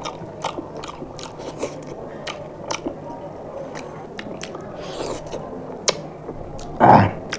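Close-up eating sounds of people eating rice and fish curry by hand: wet chewing and lip smacks with many small clicks, and fingers squishing rice. A short, louder mouth noise comes about seven seconds in.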